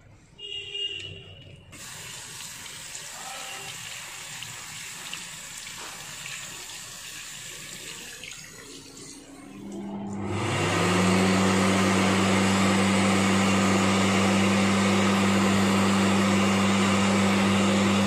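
Water running from a tap into a wash basin, stopping about halfway through. Then an electric hand dryer switches on: its motor hum rises in pitch over about a second and settles into a steady, loud blowing rush.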